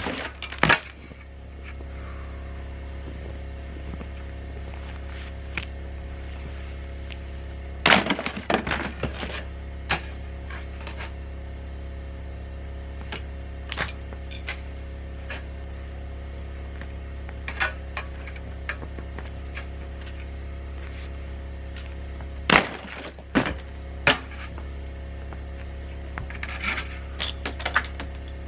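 Ice being knocked and broken off a metal roof: scattered knocks, cracks and thuds, some single and some in quick flurries, over a steady low hum.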